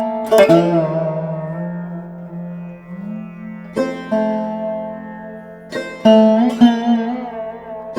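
Background music: plucked strings playing phrases with bending, sliding notes over a steady drone, with clusters of plucks about half a second, four seconds and six seconds in.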